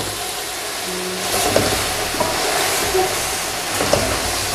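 Chicken pieces and freshly added potato cubes sizzling in hot oil in a large metal pot, a steady hiss with a few small clicks. A wooden spoon stirs through them near the end.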